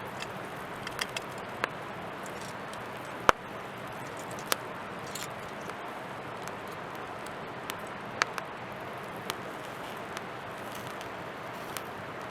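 Wood campfire crackling: irregular sharp pops over a steady hiss, the loudest pop about three seconds in.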